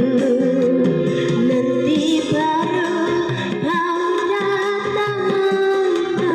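A woman singing a sustained, wavering melody over instrumental backing music. The singer herself says her voice is worn down by flu and a cough.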